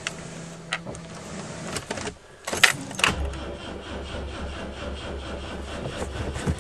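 Keys rattling and clicking at the ignition of a 1973 BMW 2002tii, then about three seconds in the starter motor begins cranking its four-cylinder engine steadily without it catching: a cold start attempt after 13 years of sitting, with fuel primed into the air cleaner.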